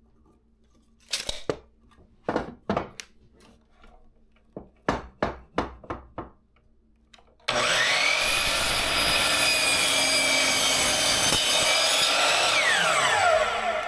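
A series of wooden knocks, then a power saw starts about halfway through and runs steadily as it crosscuts a 2x6 board. Near the end its pitch falls as the blade winds down.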